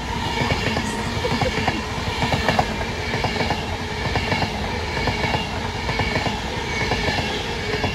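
Avanti West Coast passenger train running past at speed: wheels clattering over the rails under a steady rumble, with a steady high whine above.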